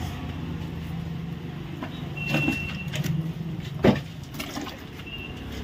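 A steady low engine hum, with a few sharp knocks.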